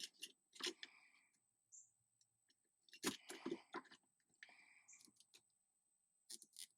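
Faint, scattered clicks and rustling from a small plastic zip tie being handled and fitted at the shift lever, in a few short clusters.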